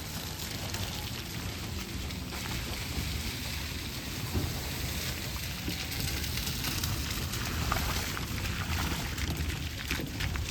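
Steady monsoon rain falling, a dense patter of fine drop ticks, with a low, steady rumble underneath.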